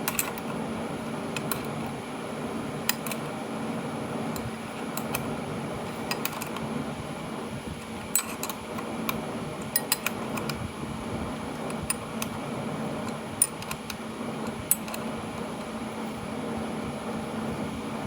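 Irregular metallic clicks and taps of a wrench working a 5/16 in. bolt loose on a Delco starter's solenoid, over a steady fan-like hum.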